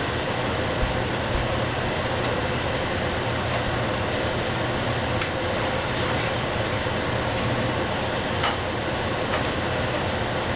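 Steady whirring hum at a lit kitchen stove, with a few short sharp ticks, the clearest about five and eight and a half seconds in.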